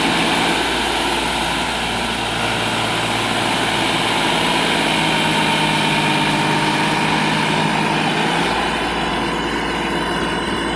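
New Holland 4710 tractor's three-cylinder diesel engine working hard under heavy load, hauling a trolley full of river sand up soft sand as its tyres dig in. The engine note is steady and shifts slightly about eight seconds in.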